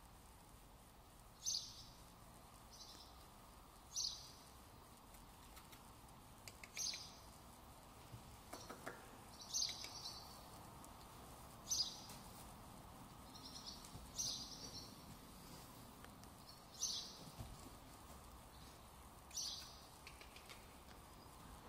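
A small bird calling with a short, high chirp, repeated regularly about every two and a half seconds over a faint steady background hum.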